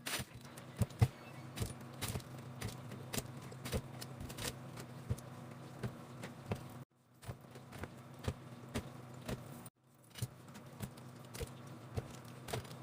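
Many small clicks and clinks of packaged snacks and containers being handled and set in place while restocking, a few every second, over a low steady hum. The sound breaks off abruptly twice.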